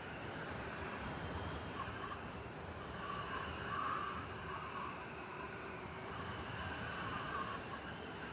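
City blizzard ambience: a steady hiss of wind-driven snow over a low rumble of traffic.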